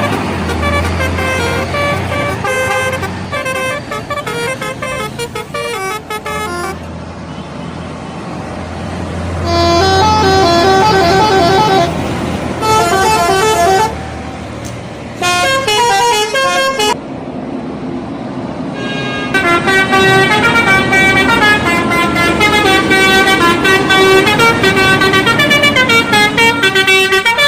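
Bus telolet horns, sets of electric air-horn trumpets tuned to different notes, playing quick melodic tunes. They come in several separate bursts with short gaps, the longest tune running through the last third, over a low bus engine hum at times.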